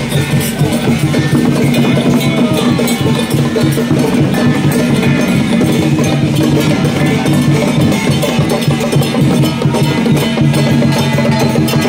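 Procession percussion, gongs and drums struck in quick, continuous beats over a steady low drone.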